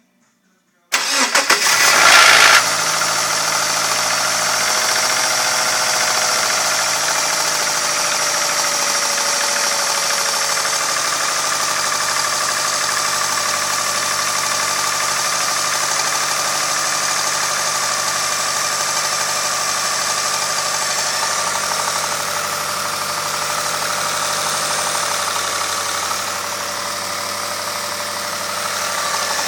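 2002 Subaru Impreza 2.5TS's 2.5-litre flat-four cranked and caught about a second in, then idling steadily. The start-up rattle is one the owner has been told is not the tensioner.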